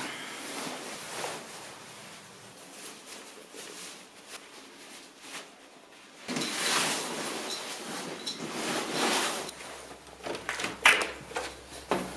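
Handling noises of getting ready to ride: jacket fabric rustling and gloves being pulled on, then a bicycle being taken up and wheeled out, with scattered clicks and knocks. A sharp knock shortly before the end is the loudest sound.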